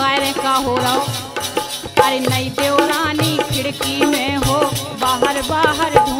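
Bundeli folk music in an instrumental passage: a melody line with wavering, bending pitch over busy percussion with many quick strokes.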